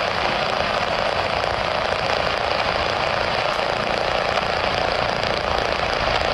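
Boeing 787 airliner's twin jet engines at takeoff thrust during the takeoff roll and rotation, a steady, loud rushing jet noise.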